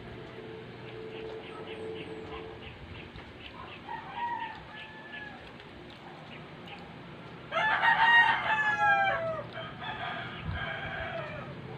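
Rooster crowing: one loud crow lasting about two seconds starting some seven and a half seconds in, with quieter calls a few seconds before and right after it.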